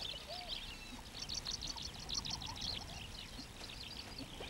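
Animal calls: a dense run of short, high-pitched chirps and squeals, with a few lower curving calls among them.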